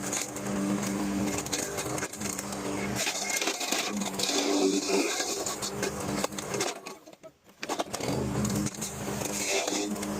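Lawnmower engine running steadily while its blade grinds up tree limbs, with a stretch of scraping and crackling in the middle. The sound drops almost to nothing for about a second around seven seconds in, then the engine comes back.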